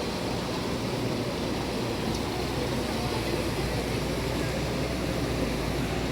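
Steady rush of floodwater after heavy rain, a continuous low roar with no breaks.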